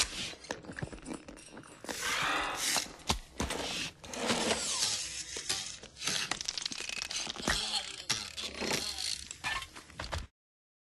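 A quick string of short, varied film sound effects: clatters, sharp clicks and brief noisy rushes, some with gliding squeaks, cutting off suddenly into silence near the end.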